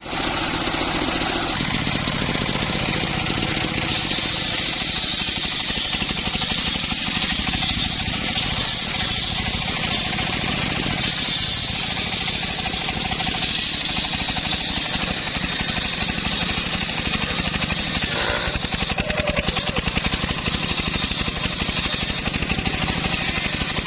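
Engine of a portable sawmill's wood-cutting saw running steadily, with a short stretch of rapid rattling about three-quarters of the way through.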